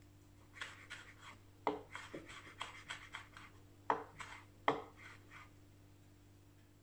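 Chef's knife chopping a red chili on a wooden cutting board: a run of about fifteen light, uneven taps, three of them sharper knocks of the blade on the board.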